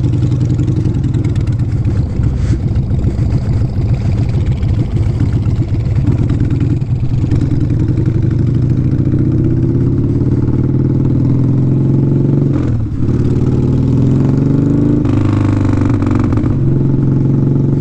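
Motorcycle engine running while riding, its pitch climbing and falling with the throttle, and a brief dip about thirteen seconds in as it shifts gear.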